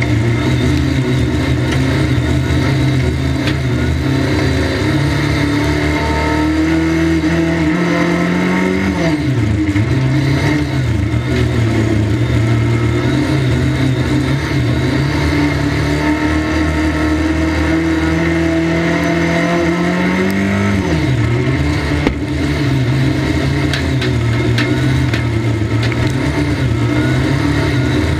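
A 1300 stock car's engine at racing speed, heard from inside the cockpit. Its pitch climbs twice, about eight and about twenty seconds in, and each time drops sharply as the revs fall.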